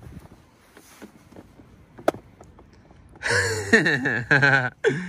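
Faint plastic knocks and one sharp click from an infant car seat carrier being tugged in its base. From about three seconds in, loud wordless vocal sounds take over.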